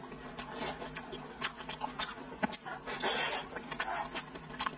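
Close-miked chewing of soft braised pork belly: wet mouth clicks and smacks coming irregularly, with a short noisier stretch about three seconds in.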